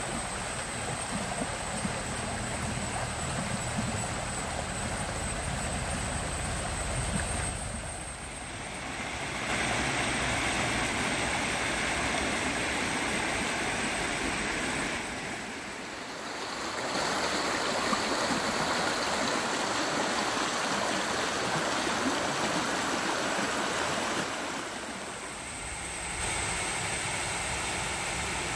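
A small stream running and splashing over rocks, a steady rush of water that dips briefly three times.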